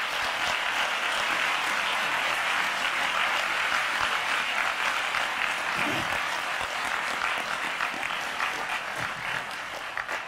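Audience applauding with dense, sustained clapping that eases off near the end.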